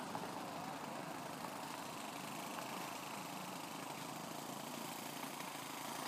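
Model aeroplane motor running steadily in flight, heard from the ground at a distance.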